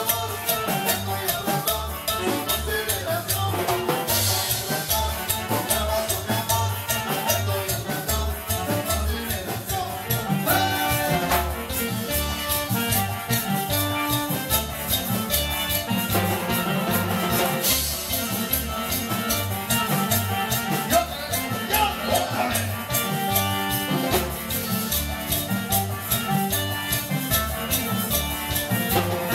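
Live band playing Latin dance music with a steady beat: bass pulse, timbales and drum kit driving the rhythm, with melodic instruments on top.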